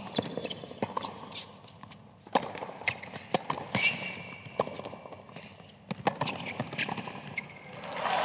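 Tennis rally on a hard court: sharp pops of the ball off the rackets and off the court, spaced irregularly, with a few short squeaks around the middle. Applause breaks out at the very end as the point finishes.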